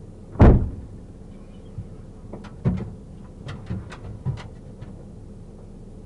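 A car door slams shut with a heavy thump, followed by a run of lighter clicks and knocks, like a door latch and handling.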